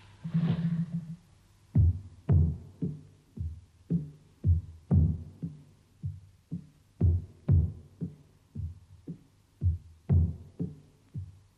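Music: a low-pitched drum beaten steadily about twice a second, some strokes louder than others, after a short held low note at the start.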